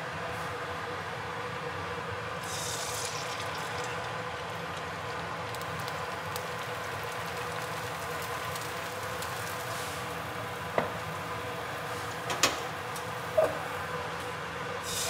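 Beaten egg whites hitting hot oil in a frying pan, a brief sizzling hiss about three seconds in, then frying over a steady background hum. Three sharp clicks come in the last few seconds.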